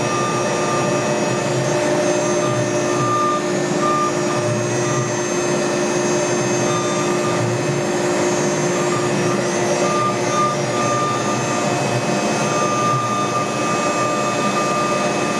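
Camaster Stinger CNC router cutting a cherry panel, its spindle running with dust collection drawing through the brush shoe. The result is a steady rushing hum with a thin whine that comes and goes.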